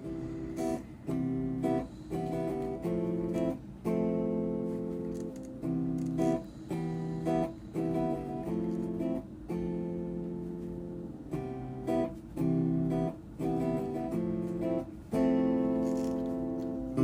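Background music: guitar strumming a run of chords, each held briefly with short breaks between them.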